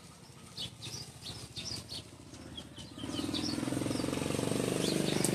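Birds chirp faintly for the first few seconds. About three seconds in, a nearby engine comes in and runs as a steady drone with a fast, even pulse, the kind of sound a small motorcycle engine makes.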